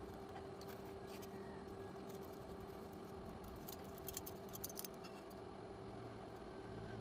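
Faint steady hum with a few light clicks, and a quick cluster of sharper clicks about four seconds in.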